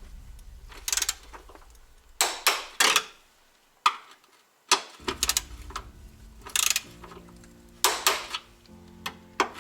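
Ratchet wrench clicking in a series of short bursts as bolts are run in on a car's underside, over background music.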